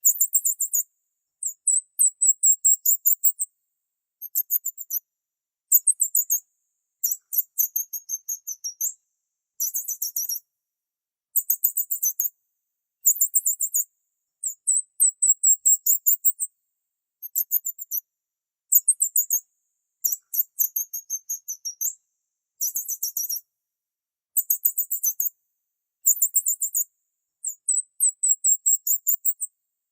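Small bird chirping high-pitched, in quick runs of chirps and twittering trills lasting a second or two each, separated by short pauses.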